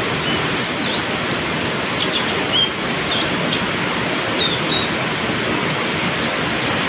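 Heavy rain falling steadily. Over it, a small songbird gives quick, short high chirps and twitters for the first five seconds or so.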